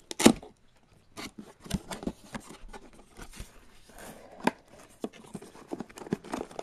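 Cardboard box flap pulled open at its tape seal with a sharp rip just after the start, then paper booklets and packing rustled and shuffled, a run of short crackles, scrapes and taps.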